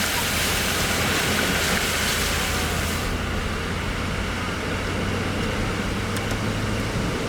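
A car driving in a heavy rainstorm on a flooded road: a steady hiss of rain and water spray over a low engine and road hum. About three seconds in, the hiss thins sharply and the low hum goes on.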